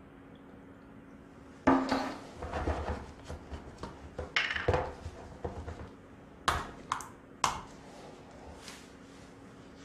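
Metal tins handled on a wooden workbench: a sharp knock as one is set down, some clattering, then a few quick sharp clicks as the cap of the other tin is worked. A faint steady hum runs underneath.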